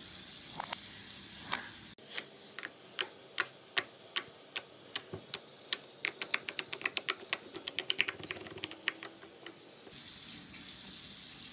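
Slime being squeezed and poked with fingers, giving sharp wet clicks and pops: a few at first, then several a second for a few seconds in the middle, stopping shortly before the end.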